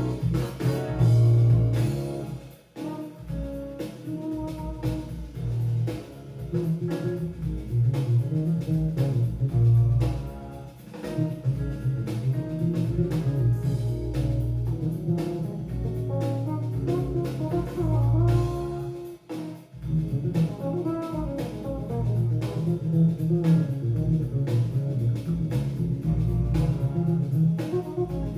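Jazz-fusion band recording with a prominent electric bass line, guitar and drum kit. The band cuts out briefly twice, about three seconds in and again near twenty seconds.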